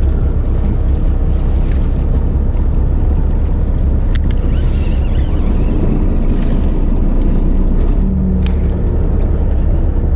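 Steady low rumble of a fishing boat's engine running, mixed with wind buffeting the microphone. A few sharp clicks break through, the clearest about four seconds in and again near the end.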